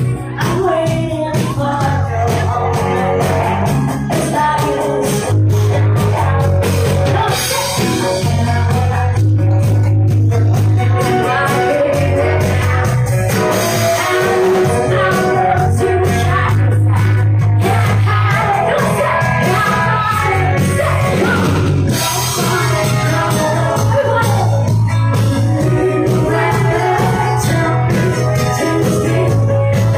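Live rock band playing with a woman singing: electric guitars, drum kit and a heavy bass line through a PA, recorded loud on a phone.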